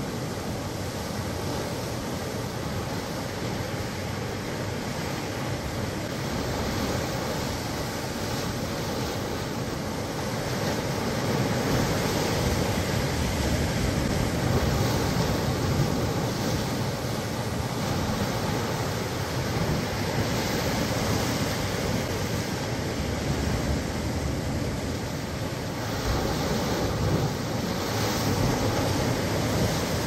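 Sea waves breaking and washing over concrete tetrapod blocks and rocks: a steady rush of surf that swells louder at times as bigger waves come in, about a third of the way through and again near the end.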